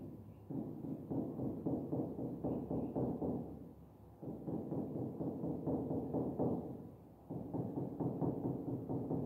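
A pen tapping and scratching on an interactive display screen as many short strokes are drawn: quick, dull taps in three runs, with brief pauses about four and seven seconds in.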